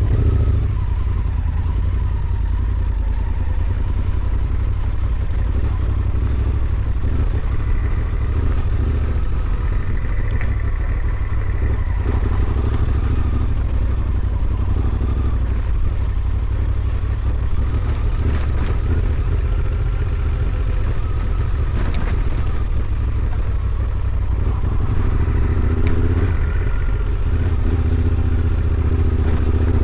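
Honda Africa Twin 1100's parallel-twin engine running steadily while the motorcycle is ridden at low speed, a deep continuous rumble with occasional clattering knocks.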